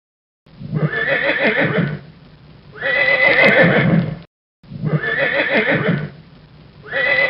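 A recorded animal call played twice in a row as a sound clip. Each play holds two loud calls, the second with a held high tone.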